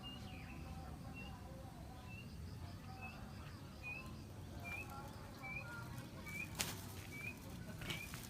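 A bird repeating a short, high, rising chirp about every second, steady and unhurried, with a couple of sharp clicks late on.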